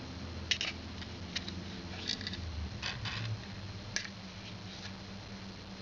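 Faint scratchy rustles and light clicks, one every second or so, as cotton wadding is pulled out of a Zippo lighter's metal insert.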